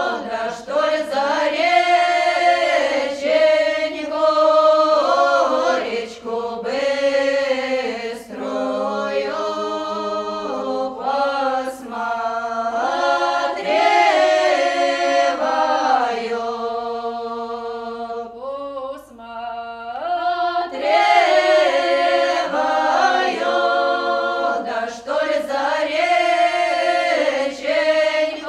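Unaccompanied choir singing in slow phrases of several voices, easing to a quieter passage about two-thirds of the way through before swelling again.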